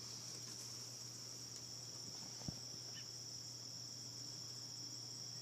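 Steady high-pitched drone over a faint low hum, with one soft click about two and a half seconds in.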